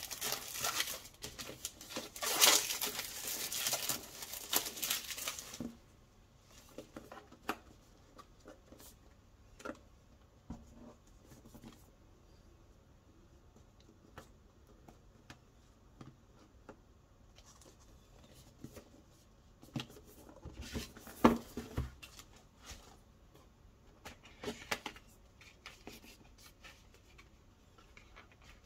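Plastic shrink-wrap being torn and crinkled off a cardboard product box for the first several seconds, followed by quieter rustling, small clicks and knocks as the box is handled, its lid opened and paper inserts slid out.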